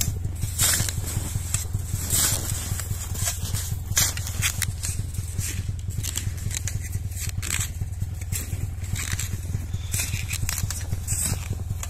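Snowmobile running steadily as it rides over rough, crusted snow: a constant low engine drone with frequent scraping and knocking from the skis and track.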